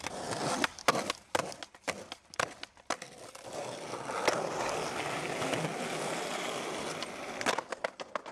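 Skateboard on stone paving: a string of sharp clacks of the board in the first few seconds, then the wheels rolling steadily over the paving, then more clacks near the end.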